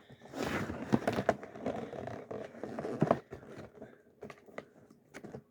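Cardboard advent calendar box being handled to open it: rustling and scraping with a few light clicks, fading near the end.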